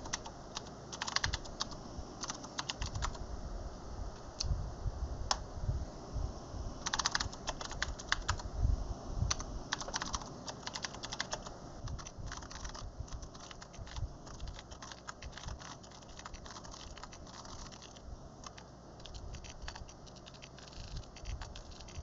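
Typing on a computer keyboard: quick, irregular key clicks in bursts, thinning out over the second half.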